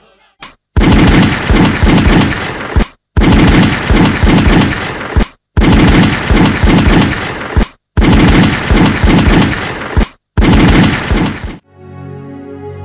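Rapid automatic gunfire in five bursts of about two seconds each, each cutting off abruptly: a dubbed machine-gun sound effect. Soft music comes in near the end.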